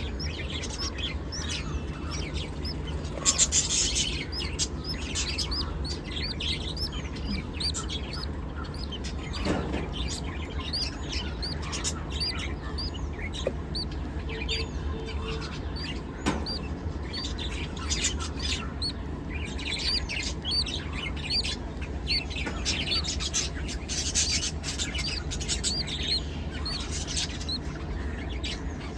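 Small parrots chirping: a dense, continuous chatter of short high chirps, with a louder burst about three seconds in, over a steady low hum.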